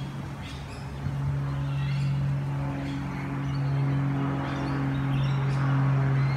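Birds chirping in short high calls over a steady low hum.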